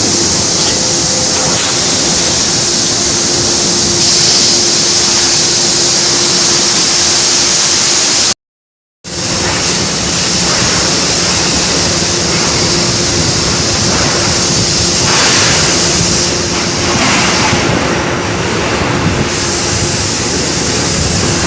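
Steady factory machine noise of a washing machine parts production line: a constant loud hiss with a faint steady hum underneath, cut to dead silence for about half a second near the middle.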